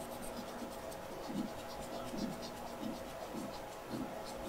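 A swab scrubbing the skin of a forearm for aseptic cleaning before IV insertion: soft, scratchy back-and-forth rubbing strokes, about one every half second to second.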